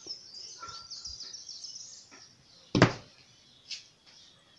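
Birds chirping in the background, then a single sharp knock of a can against the wooden tabletop just before the three-second mark, with a fainter tap about a second later.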